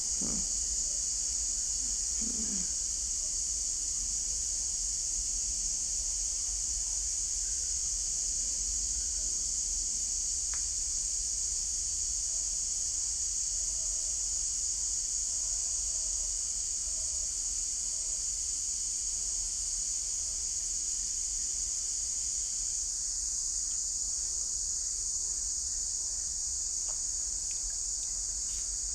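Steady, high-pitched chorus of insects trilling continuously, with a low steady rumble underneath.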